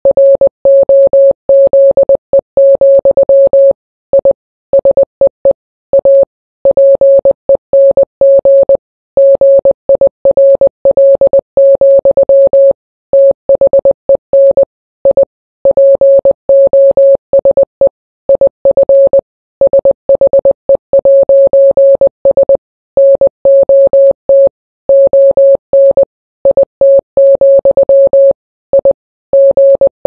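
Morse code: a single steady electronic beep keyed on and off in quick dots and dashes, spelling out song lyrics letter by letter.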